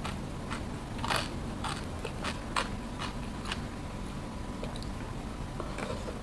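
A person chewing crunchy food, with sharp crunches about every half second that thin out after the first three and a half seconds.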